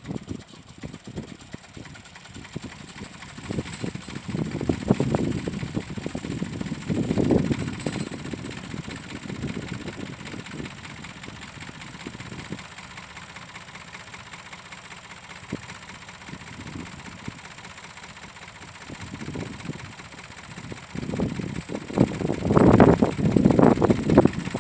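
Ford 4000 tractor engine running on a cold start in about −10 °C frost. It swells and eases in loudness, with a quieter stretch in the middle and the loudest running near the end.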